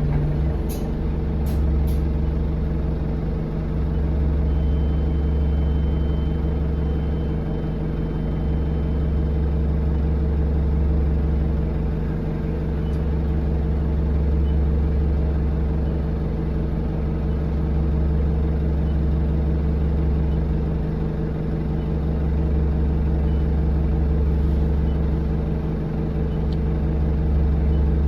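Alexander Dennis Enviro200 bus engine running steadily, heard from inside the passenger cabin as a low rumble, with a few brief rattling clicks in the first two seconds. A thin high whistle sounds for about five seconds, starting about four seconds in; the uploader says this bus has a turbo leak that makes it whistle.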